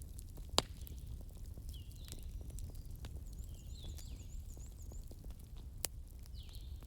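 Wood fire crackling, with scattered small snaps and two sharp pops, one about half a second in and one near the end. Short high chirps repeat every second or two, with a quick warbling trill in the middle.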